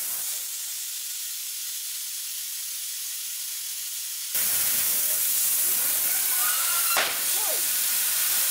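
High-pressure waterjet cutter's jet hissing steadily, turning suddenly louder about four seconds in as it punches through the skateboard deck. A single sharp crack comes about seven seconds in, followed by brief whistling glides.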